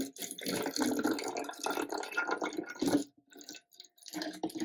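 Vinegar being poured into a plastic water bottle, liquid splashing and gurgling; the pouring pauses about three seconds in and starts again near the end.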